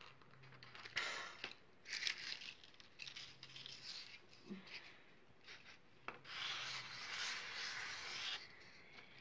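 Hands handling a small ball and spreading gold glitter and tinsel strands across a tabletop: faint rubbing and rustling in several short bursts. There is a sharp click about six seconds in, followed by a longer stretch of rubbing.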